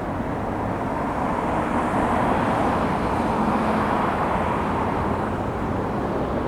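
Steady rushing noise of distant vehicles, swelling gently for a few seconds in the middle and easing off again.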